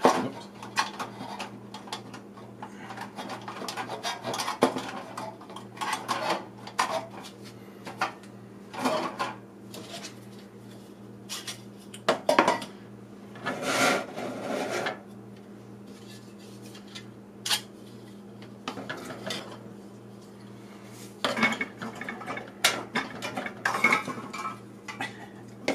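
Thin sheet-metal toy castle pieces clinking and clattering as they are handled and fitted together by tab and slot, in irregular bursts of sharp clicks over a faint steady hum.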